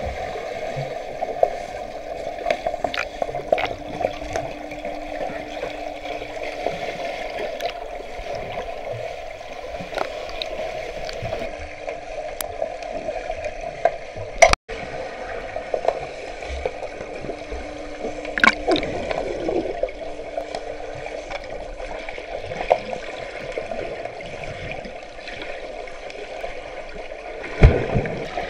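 Underwater pool sound picked up by a submerged camera: a steady muffled water rush with scattered sharp clicks and knocks. The sound cuts out for an instant about halfway through.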